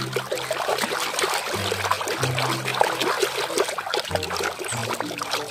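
Water sloshing and splashing as a hand scrubs around in a tub of foamy, soapy water, with a steady run of small splashes. Background music with low held bass notes plays underneath.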